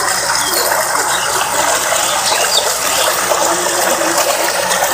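Water gushing from an irrigation outlet into a concrete channel, a steady rushing splash.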